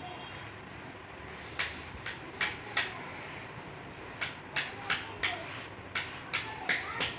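Quick swishing strokes of a hand sweeping grit and dust across a stone floor slab. There are two runs of about three strokes a second, the first starting about one and a half seconds in.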